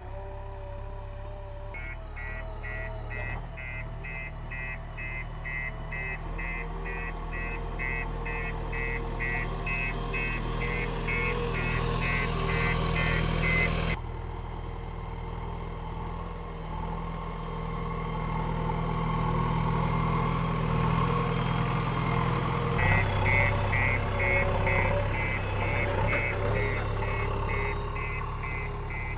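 JCB 3DX backhoe loader's diesel engine running under load, with its reversing alarm beeping rapidly as the machine backs up. The beeping starts about two seconds in, stops around the middle, and starts again near the end.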